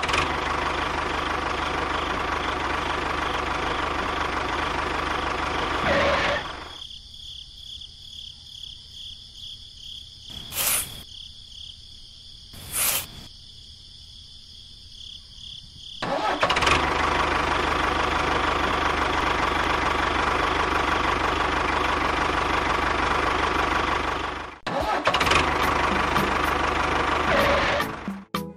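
Tractor engine running steadily. It falls much quieter for about ten seconds in the middle, where two short whooshes sound, then runs again with a brief break near the end.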